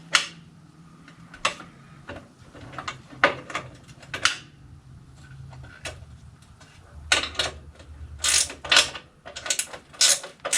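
Hand ratchet wrench clicking in short, irregular runs of strokes with metal clinks. The strokes come quicker and louder in the second half.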